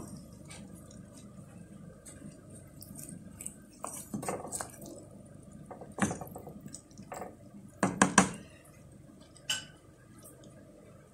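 A wooden spoon working vegetables down into broth in a metal cooking pot: a few irregular knocks and scrapes against the pot among wet liquid sounds, the loudest pair of knocks about eight seconds in.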